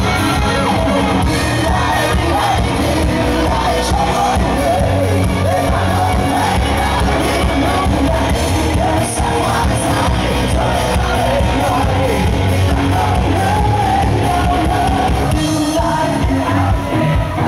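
Rock band playing live in concert, a singer over the full band at high volume.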